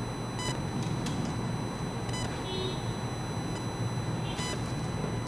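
Steady low background hum, with a few faint light clicks as the hair is combed and fixed with a plastic hair clip.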